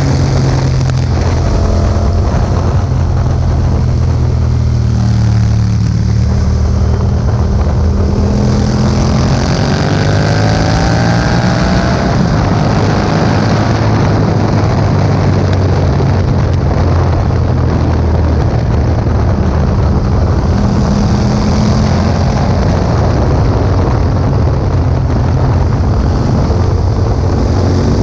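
Yamaha MT-07's parallel-twin engine through an Akrapovič exhaust, running under way. About a third of the way in, the engine pitch climbs as the bike accelerates, then settles back to a steady drone. Wind noise on the microphone throughout.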